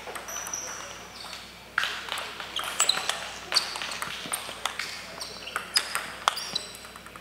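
Table tennis rally: the ping-pong ball clicking sharply off paddles and table, hit after hit from about two seconds in, with more ball clicks from the other tables in the hall.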